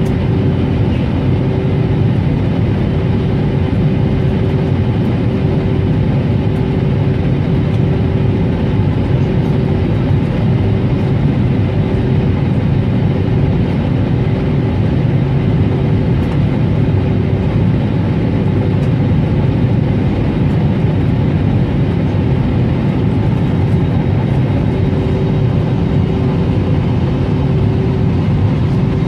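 Steady cabin noise inside an Airbus A321neo during its descent: the low drone of the engines and the rush of air over the fuselage, with a faint steady hum running under it.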